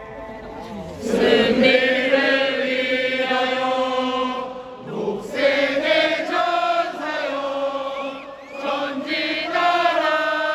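Voices chanting together in long, held sung notes, in phrases of a few seconds each with short breaks between them.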